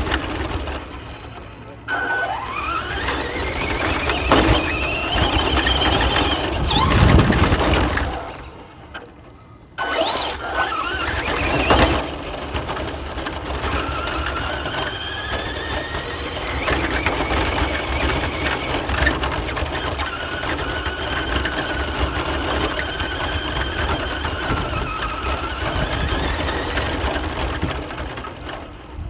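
Radio-controlled car driving around, its motor whining and rising and falling in pitch as it speeds up and slows. The sound drops away briefly about nine seconds in.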